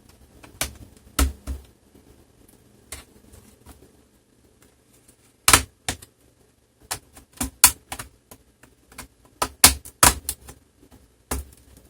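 Plastic clips of a laptop's bottom case snapping loose as a thin flexible blade is worked along the case seam: irregular sharp clicks and snaps, loudest about five and a half seconds in and in a quick run around ten seconds.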